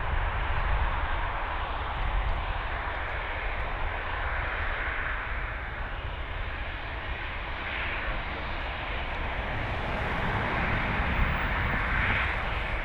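Fixed-wing aircraft engines running: a steady rushing noise that swells slightly in the second half.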